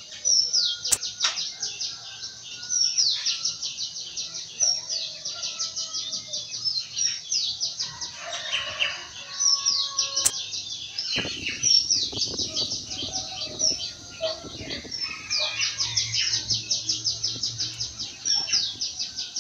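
Small birds singing continuously in quick runs of high, descending chirps, with a few sharp clicks.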